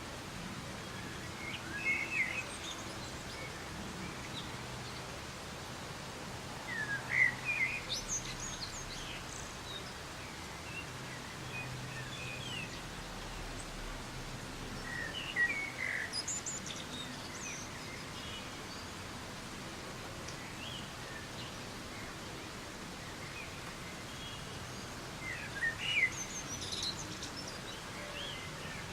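Soft, steady rain hiss with a bird calling now and then: four short bursts of high chirps, near the start, about a quarter of the way in, around the middle and near the end.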